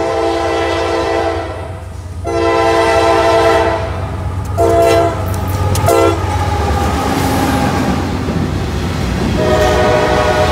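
Freight train's diesel locomotive air horn sounding for a grade crossing: two long blasts, two short ones, then another long blast near the end. A steady low rumble of the locomotives and rolling freight cars runs underneath as the train passes.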